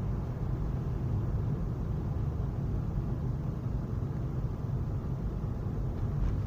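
Steady low road and engine noise inside the cabin of a moving car.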